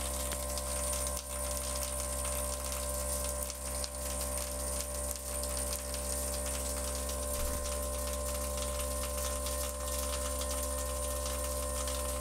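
Homemade fly cutter in a CNC mill spindle turning at 4000 RPM, taking a wide facing pass across a metal block: a steady machine whine, with a high tone, over the dense, even crackle of the cut.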